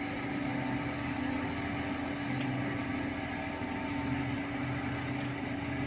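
Truck crane diesel engines running steadily while hoisting, with an even, unchanging hum.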